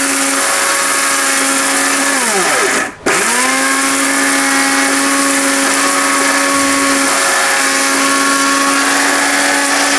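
CGL Jaipan 1000-watt mixer grinder running at full speed, grinding dried turmeric into powder in its small stainless-steel jar. The motor winds down about two seconds in, stops for a moment near three seconds, then starts again and runs steadily.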